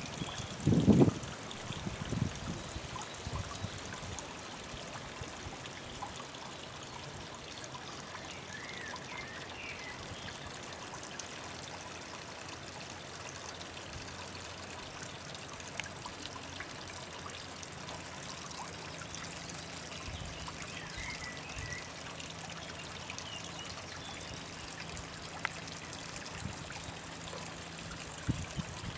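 Small garden waterfall trickling steadily into a pond. There are a few low thumps about a second in, and short high chirps here and there.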